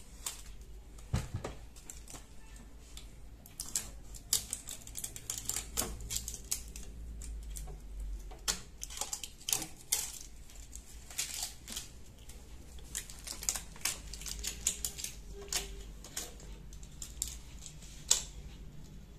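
Green protective tape being peeled off the plastic body of a Cameo 4 vinyl cutting plotter, with plastic packing pieces handled: a run of irregular crackles, taps and clicks.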